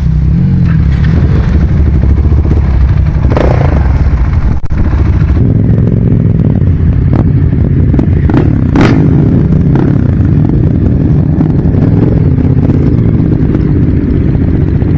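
Motorcycle running on the road with a heavy, steady low rumble. A few short sharp clacks, the clearest about two-thirds of the way through.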